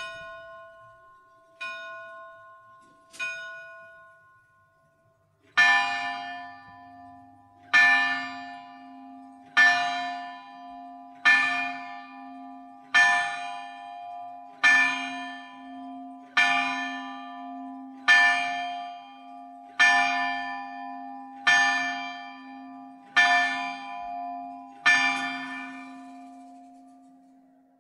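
A bell strikes twelve slow, evenly spaced strokes, about one every 1.7 seconds, each ringing on as it fades: the hour of midnight. Before them, a lighter, higher bell sounds three softer strokes.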